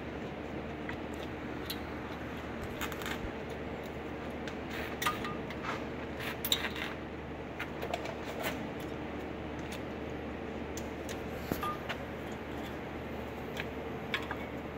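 Scattered light metallic clicks and scrapes as a front brake pad is worked into the caliper bracket's pad clips on a 2015 Subaru Legacy, over a steady hum.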